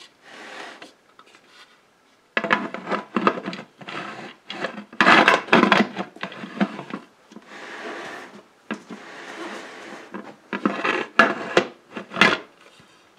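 Metal lid of a Presto 23-quart pressure canner being fitted and twisted onto the canner body, scraping and clicking against the rim in irregular bursts, until it locks.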